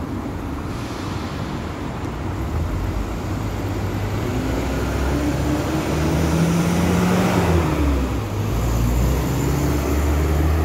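Road traffic: cars and a minibus driving past close by, with engine hum building and growing louder from about halfway through as vehicles approach.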